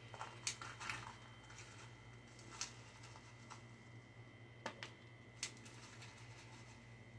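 A few faint scattered clicks and taps of a plastic container being handled as blueberries are picked out and dropped into a bowl, over a steady low hum.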